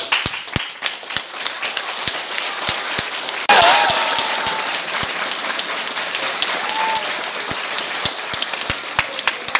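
Audience applauding, with some loud claps close by. The applause grows louder about three and a half seconds in, and a few shrill cheers rise over it.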